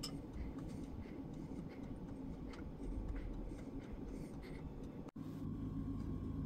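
Quiet low room noise with faint scattered light ticks and rustles of handling; after a break about five seconds in, a steady low hum with a faint high whine.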